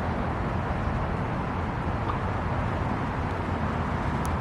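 Steady low rumbling outdoor background noise with no distinct events, and a faint click near the end.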